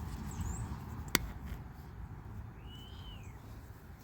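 A single sharp click about a second in over a low rumble, then a short, faint bird call, one rising-and-falling whistle, about three seconds in.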